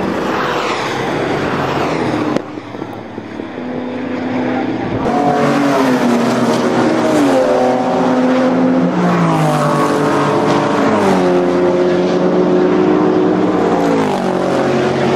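Racing car engines at high revs on a circuit, with a break a little over two seconds in. From about five seconds in, the engine note climbs and steps down several times as the cars accelerate and go through the gears.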